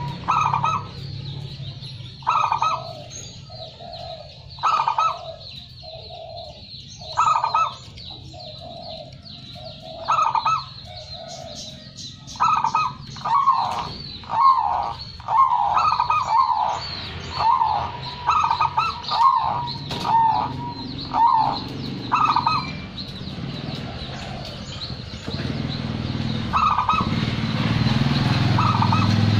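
Zebra dove (perkutut) singing its cooing song. Short phrases of coos come every two seconds or so at first, then a longer run of quick, closely repeated notes about halfway through. A low rumble underneath grows louder over the last few seconds.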